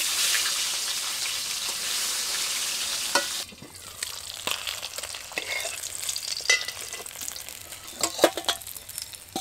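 Magur (walking catfish) pieces frying in hot mustard oil: a loud hissing sizzle that drops about three seconds in to a quieter crackle with sharp spitting pops.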